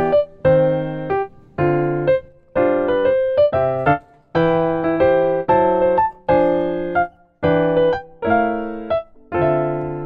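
Background music: a piano-like keyboard playing a slow sequence of chords, each struck and left to fade, about one or two a second.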